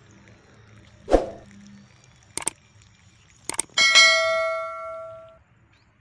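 A knock, two sharp clicks, then a metal object struck hard and ringing with a clear bell-like tone that fades over about a second and a half.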